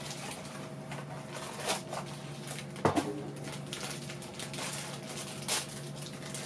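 Blind-box packaging being opened and handled by hand: scattered crinkles and a few sharper clicks, over a steady low hum.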